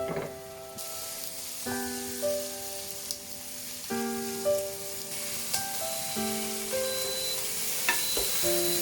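Turkey breast pieces sizzling in oil in an electric multicooker pan on its sauté setting, the hiss starting about a second in, with a few light clicks.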